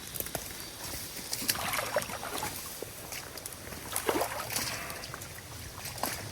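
Water sloshing and splashing as a person wades through a creek, with several irregular splashes from the steps.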